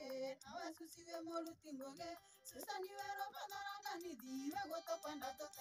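A woman singing a campaign song over a backing track with a steady beat.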